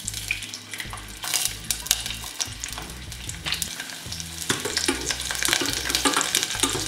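Crushed garlic cloves sizzling and crackling in hot olive oil in a stainless-steel saucepan, the crackling getting busier in the second half. Tongs stir the garlic around the pan near the end.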